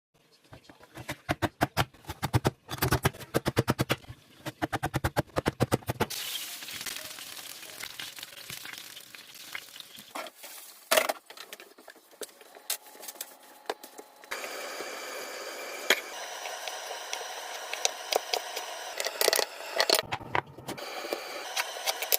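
A knife chopping fast on a cutting board, several strokes a second, for about the first six seconds. Then a steady hiss with scattered knocks, somewhat louder from about two-thirds of the way in.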